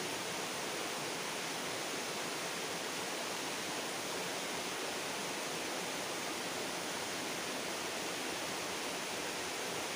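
Steady rushing of flowing river water, an even hiss without breaks.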